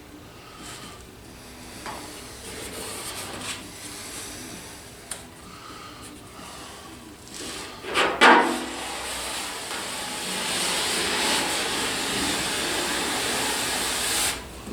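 Scraping and rubbing of a spreader working Duraglass fiberglass body filler onto a panel: short strokes at first, a loud scrape about halfway through, then a longer steady rasping stretch that stops near the end.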